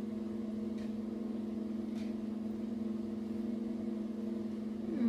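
A steady low hum with several overtones, unchanged throughout. A couple of faint clicks of chewing come early on, and near the end a short falling hum of a voice, as of someone tasting food.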